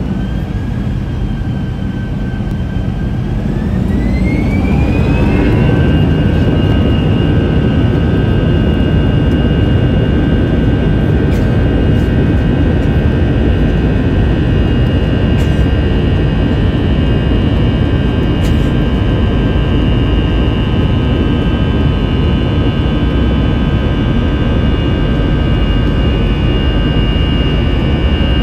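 Airbus A321's CFM56 turbofan engines heard from inside the cabin, spooling up to takeoff thrust. Their whine rises in pitch and grows louder over the first several seconds, then holds at a steady whine over a heavy rumble during the takeoff roll.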